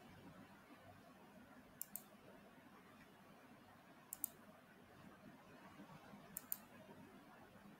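Near silence with faint room tone, broken by three pairs of short, sharp clicks about two seconds apart.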